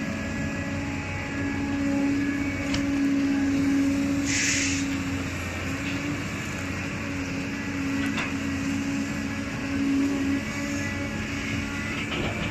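Cat 320D hydraulic excavator's six-cylinder diesel engine running steadily under digging load, its drone swelling louder twice as the hydraulics work the boom and bucket. A short hiss comes about four and a half seconds in, and a few sharp knocks of the bucket and linkage sound through it.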